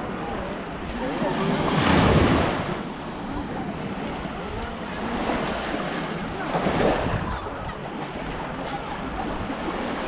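Small sea waves washing up on a sandy shore, a steady wash that swells louder about two seconds in and again near seven seconds.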